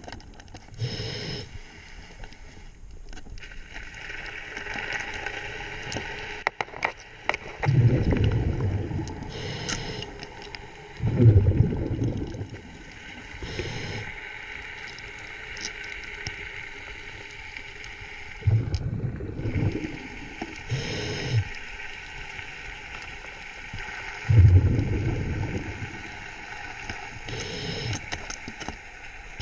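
A scuba diver breathing through a regulator underwater. Exhaled bubbles give loud low rumbling gurgles every few seconds, with short hissing inhalations between them and a few sharp clicks.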